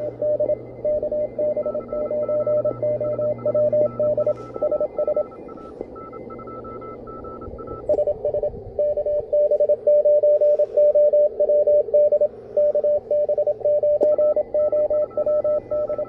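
Morse code (CW) signals received on an Elecraft KH1 handheld transceiver and played through a speaker. A keyed tone of dots and dashes sits over band hiss, with a weaker second station keying at a higher pitch. The background noise changes about halfway through.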